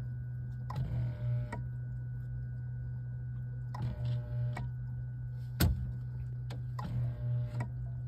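A Whirlpool refrigerator's motorized air damper running in short bursts of under a second, three times, each beginning and ending with a click, over a steady low hum. A single sharp click comes about halfway through. The damper keeps cycling on a unit whose thermistor is faulty.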